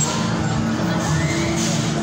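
Music over a fairground ride's sound system, with sustained bass notes, while riders on the spinning cars shout and scream.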